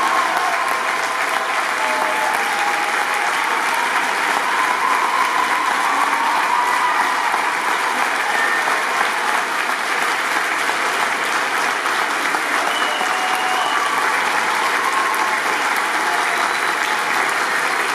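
Audience applauding steadily, the clapping mixed with a few voices.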